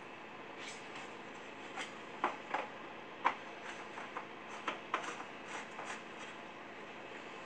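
Irregular light clicks and knocks of things being handled on a workbench, about a dozen, the sharpest about three seconds in, over a steady low hiss.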